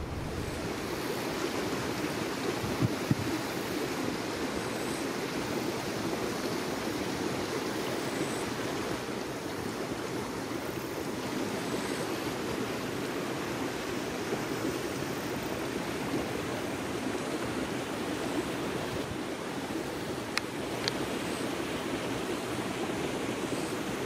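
Steady outdoor rushing noise, like wind or distant flowing water, with a couple of faint clicks about three seconds in and again near twenty seconds.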